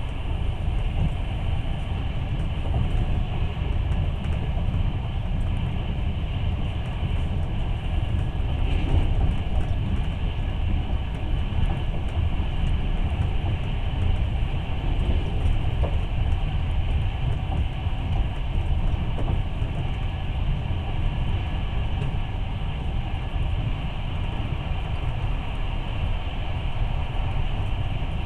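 Moving passenger train heard from inside the carriage: steady running noise of the wheels on the rails, strongest in the low end, with no breaks.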